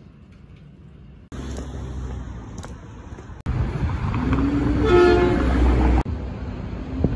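Traffic noise with a vehicle horn sounding for about a second midway; the sound jumps abruptly in level twice.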